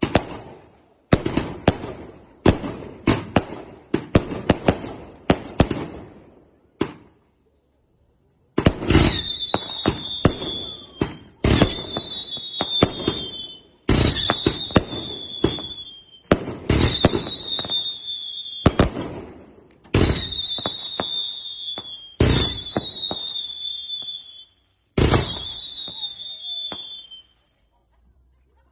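Fireworks going off: a quick string of sharp bangs for about seven seconds. After a short pause comes a slower series of about seven shots, each trailed by a falling whistle lasting a second or two.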